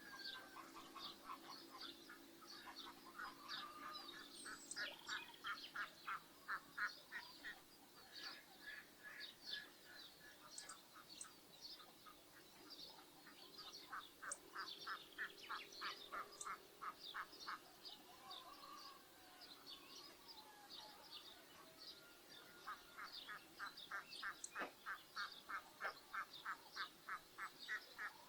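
Faint rural bird chorus: many small birds chirping, with three runs of quick, evenly repeated calls at about four a second, over a faint low hum in places.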